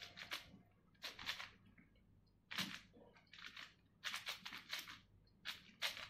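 Plastic QiYi Wushuang 5x5 speedcube being turned fast by hand, its layers clicking in short bursts about once a second.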